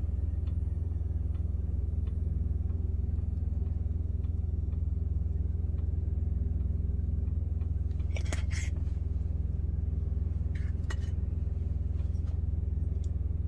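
Steady low hum of a semi truck's idling diesel engine heard inside the cab. A few light clicks come about eight and eleven seconds in.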